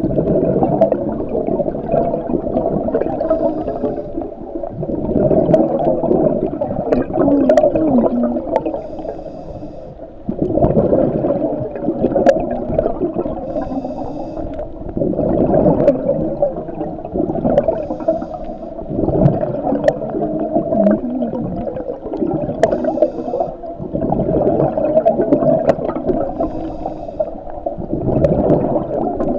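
Scuba diver breathing through a regulator underwater: a bubbling, gurgling exhalation about every five seconds, with a fainter hiss of each inhalation in between. Scattered sharp clicks run throughout.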